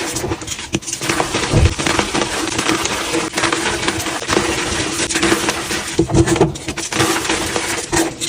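Crunchy blocks of gym chalk being crushed and crumbled, a dense run of crackling and crunching.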